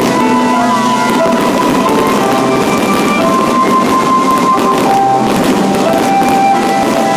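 Fireworks bursting and crackling in a rapid, continuous barrage, mixed with loud music carrying a melody.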